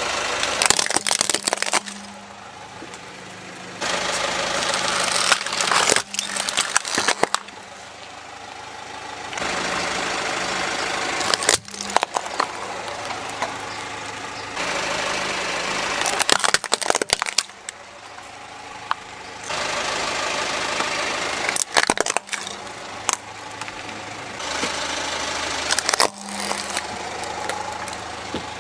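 Hard plastic toys cracking and crunching under a car tyre, in short clusters of sharp snaps about every five seconds, between stretches of the car's engine idling. The idle hum changes level abruptly several times.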